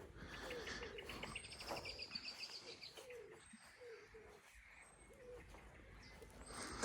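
Faint birdsong. A small bird gives a rapid high trill about a second in, while low, short cooing notes repeat through the first few seconds.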